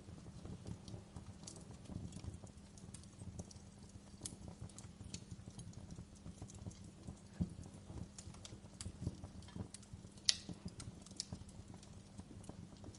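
Wood fire in a fireplace crackling, with irregular sharp pops and snaps over a low rumble of burning flames; one louder pop comes about ten seconds in.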